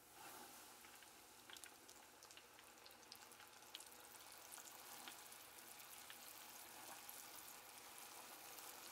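Breaded catfish nuggets deep-frying in hot oil: a faint, steady sizzle with many small scattered pops and crackles.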